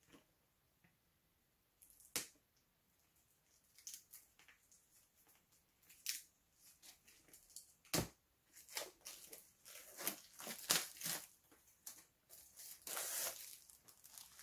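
Plastic shrink-wrap being picked at and torn off a Blu-ray steelbook case: a few sharp clicks at first, then crinkling and tearing that thickens towards the end.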